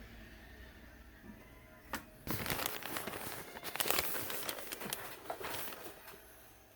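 Rustling and crinkling handling noise, with many irregular sharp crackles, starting about two seconds in and lasting about four seconds, over a faint low hum.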